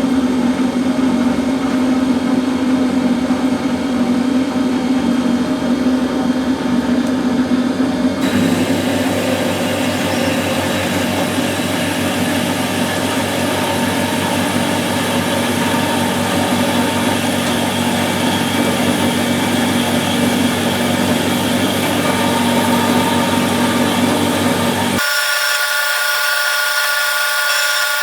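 Bernardo HBS 150 Z metal-cutting bandsaw running with its 1100 W motor, the blade cutting through an 80 mm steel bar. The sound changes abruptly about a third of the way in, and again near the end, where the low hum drops out.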